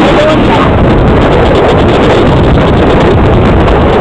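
Loud, steady running noise of a moving passenger train heard from inside a carriage with open windows, with wind blowing on the microphone.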